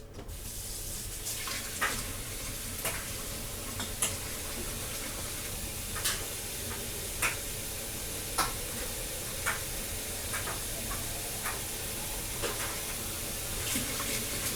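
Water running steadily from a kitchen tap into a pitcher, a steady hiss with light clicks about once a second.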